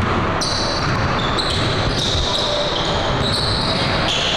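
Basketball game on a hardwood gym court: a ball bouncing, and a run of high-pitched sneaker squeaks over a steady hubbub of the gym.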